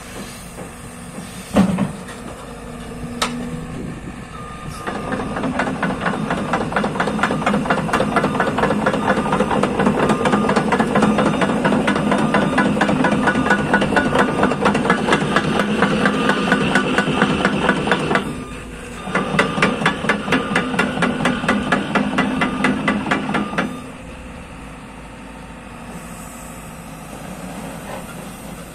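JCB JS220 tracked excavator running at idle, then brought up to working revs under load with a fast, dense rhythmic clatter. The clatter stops briefly about two-thirds of the way through, resumes, then falls back to idle near the end.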